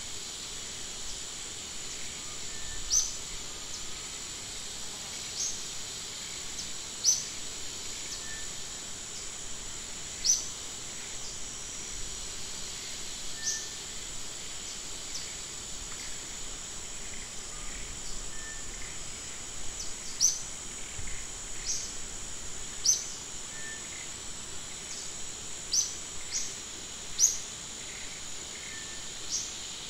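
Forest ambience: a steady, high-pitched insect drone, with short, sharp, high chirps every two to three seconds.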